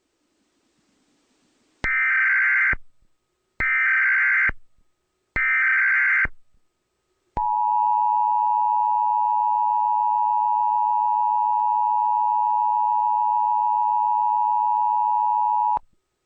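Emergency Alert System test tones: three short bursts of warbling digital data tones (the SAME header), each about a second long, then the two-tone EAS attention signal, held steady for about eight seconds before it cuts off.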